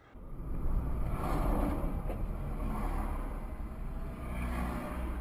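Car driving along a street, its engine and tyre noise a steady low rumble heard from inside the cabin through a dashcam, starting abruptly just after the start.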